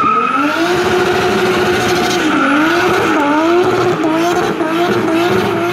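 Car tyres squealing in one long pitched squeal that sets in suddenly, holds for about two seconds, then wavers, its pitch dipping and recovering several times.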